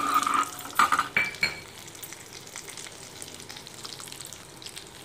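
Cashews frying in hot ghee in a metal pan, sizzling steadily, with a steel ladle scraping and knocking against the pan a few times in the first second and a half.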